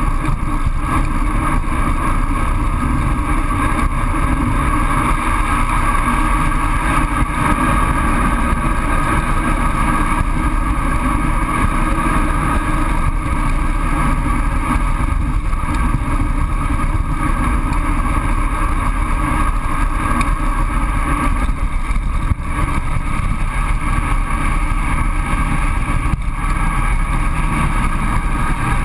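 Steady rush of wind and road noise buffeting a GoPro's microphone on a road bike descending at speed.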